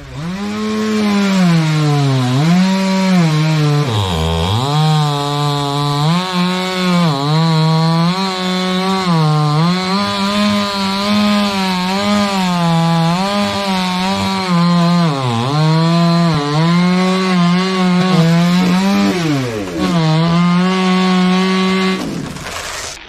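Two-stroke chainsaw cutting into a coconut palm trunk, its engine pitch repeatedly dipping under the load of the cut and rising again, then stopping near the end.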